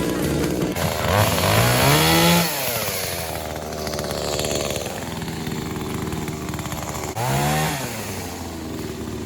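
Husqvarna two-stroke chainsaw running, throttled up twice, about a second in and again near the end, its pitch rising and falling back each time, with steadier lower running in between.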